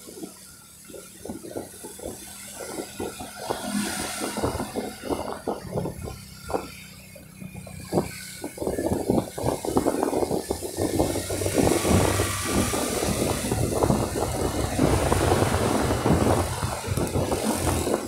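Road and traffic noise heard from a vehicle moving along a wet street: engine noise, a hiss, and dense crackling rattles. The noise grows louder about halfway through.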